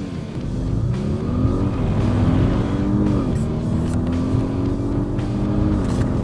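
Audi S8's twin-turbocharged V8 accelerating hard in a 0-60 run. Its pitch climbs and drops at three quick upshifts: about a second and a half in, about three seconds in, and near the end.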